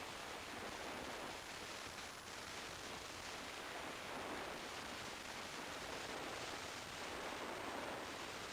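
Steady rush of wind and road noise on the camera of a motorcycle riding at highway speed.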